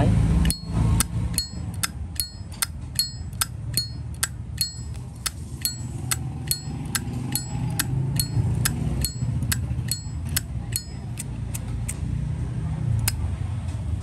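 Zippo lighter lid flipped open and snapped shut over and over: a quick series of sharp metallic clicks, about two to three a second, many with a short bright ring, thinning out near the end.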